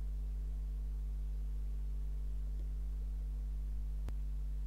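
Steady low electrical mains hum with a few fixed overtones. A single faint click about four seconds in.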